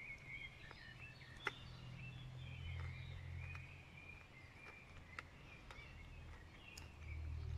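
Faint outdoor ambience of small birds chirping in short, repeated calls, with a few sharp clicks. Under it runs a low rumble that swells twice, once around a third of the way in and again near the end.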